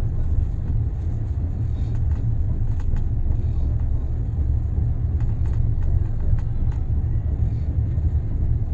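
Steady low rumble of a moving passenger train heard from inside the coach, with faint light clicks now and then.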